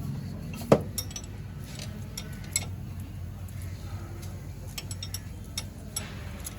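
Metal tools clinking and tapping against metal in scattered, sharp clicks, the loudest about 0.7 s in, over a steady low hum.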